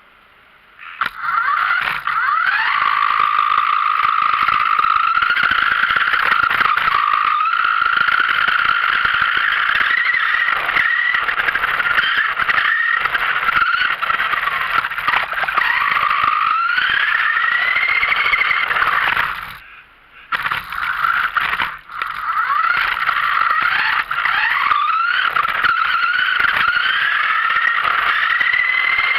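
Radio-controlled car driving, heard from a camera riding on it: its motor gives a high whine that rises and falls with the throttle over a steady rush of tyre and ground noise. The sound drops away briefly about twenty seconds in, then picks up again.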